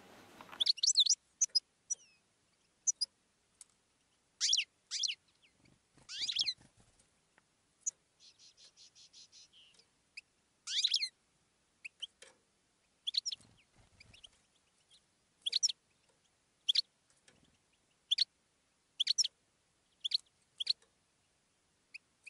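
Birds chirping: short, sharp calls repeating every second or so, with a brief rapid trill about eight seconds in.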